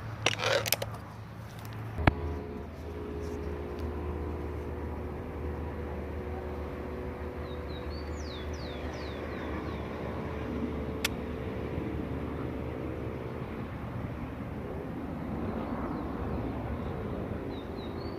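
A steady engine hum starts about two seconds in after a sharp click, and its higher tones drop away about three-quarters of the way through. A few brief bird chirps sound near the middle and again near the end.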